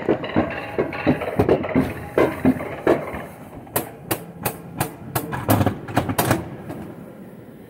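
Mountain coaster sled running on its tubular steel track, knocking rhythmically about three times a second, with a run of sharper metallic clacks past the middle. The knocking dies away near the end as the sled slows.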